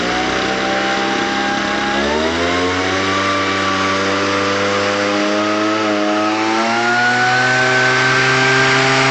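The small engine of an Ochiai V8 World 1210 tea harvester running. It revs up about two seconds in, its pitch rising, then holds a steady speed, with a slight further rise near the end.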